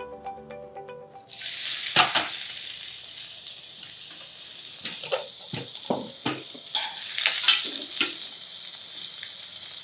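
Chopped onions hit hot oil and whole spices in a steel pan and start to sizzle loudly, suddenly, about a second in. A metal spoon clinks and scrapes against the pan as they are stirred.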